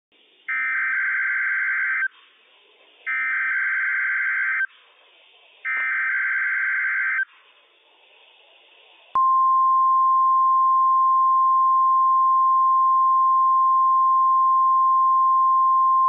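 NOAA Weather Radio Required Weekly Test signal: three bursts of SAME digital header data, each about a second and a half long with short gaps between them. About nine seconds in, the single steady 1050 Hz warning alarm tone starts suddenly and holds.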